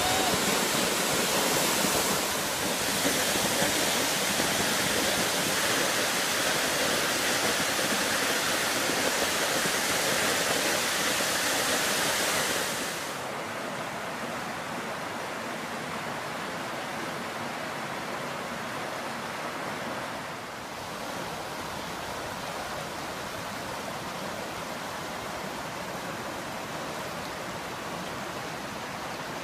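Steady rushing roar of a waterfall's falling water. About halfway through it cuts to the quieter, steady rush of a shallow creek running over small rapids.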